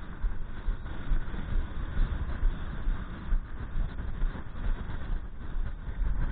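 Strong gusty wind buffeting the microphone: a continuous low rumble that swells and drops irregularly, with a hiss over it.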